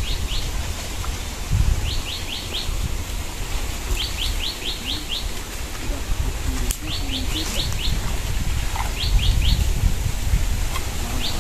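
A bird calling over and over, each call a quick run of four to six high notes, repeated about every two seconds, over a steady low rumble.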